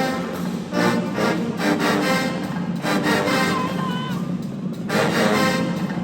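Marching band playing, with brass instruments over a steady drum beat.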